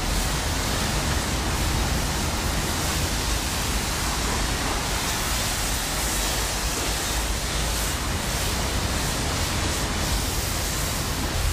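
Car-wash pressure wand spraying a foam-covered car: a steady hiss of spray with a low hum underneath.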